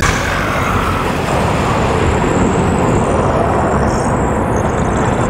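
Loud, steady rushing noise from an added sound effect, such as rushing fire or a gusting wind effect.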